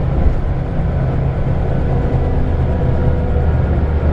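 Scania L94UB single-deck bus's diesel engine running steadily under way. Its engine note drops lower about halfway through.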